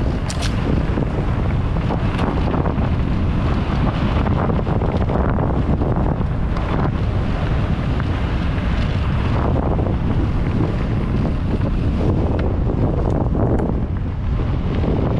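Steady wind rumble buffeting the microphone of a mountain bike rider's camera while riding dry dirt singletrack, with the bike's tyres and frame crunching and rattling over the trail. A sharp click comes near the start, and scattered smaller clicks follow.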